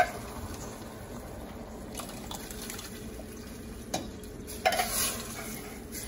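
A tin can of tomato pulp being emptied into a stainless steel saucepan of sauce, with faint sloshing and a few light metallic clinks of the can against the pot. The strongest clink rings briefly, a little before the end.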